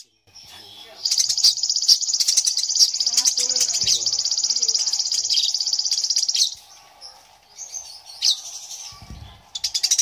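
Eurasian tree sparrow chirping in a long, rapid rolling chatter of high notes for about five seconds, then a pause and a shorter burst near the end.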